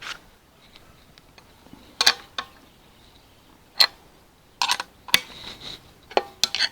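A steel spanner clinking on the lid nuts of a steel pressure autoclave as the bolts are tightened crosswise: irregular sharp metallic clicks and clinks, a few ringing briefly.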